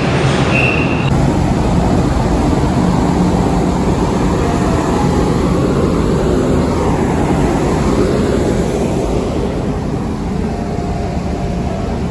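Steady low rumble of ship's machinery filling a ferry's enclosed steel vehicle deck, with a short high beep near the start.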